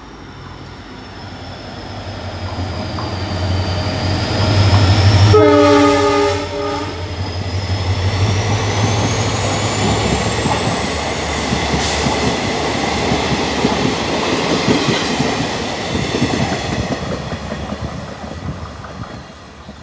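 A passenger train running past at close range. Its rumble builds as it approaches, its horn sounds once for about a second and a half about five seconds in, and then its wheels clatter over the rail joints as the coaches go by, fading toward the end.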